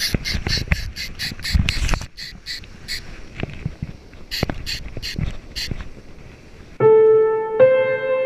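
Wind buffeting the microphone over breaking surf, with a quick run of sharp clicks, about four a second, that thins out after about two seconds. Piano music comes in near the end.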